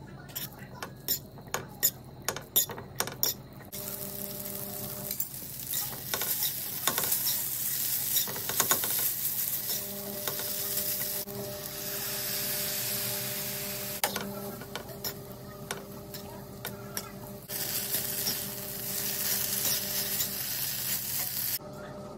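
Instant noodles stir-fried in a hot non-stick pan. A utensil clacks against the pan for the first few seconds, then a steady sizzle with scattered taps and scrapes as the noodles are tossed. The sizzle is loudest around the middle, when milk goes into the pan.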